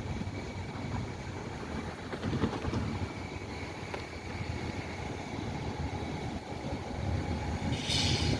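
A steady low rumble from a vehicle, with a brief hiss near the end.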